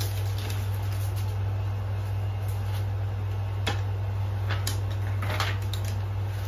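Paper and plastic gift packaging being handled and rustled, with a few light clicks and a short rustle about five seconds in, over a steady low hum.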